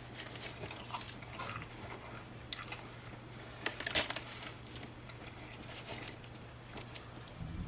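A person chewing and biting a double bacon burger, with irregular crunchy and wet mouth clicks; the loudest bite comes about four seconds in. A steady low hum runs underneath.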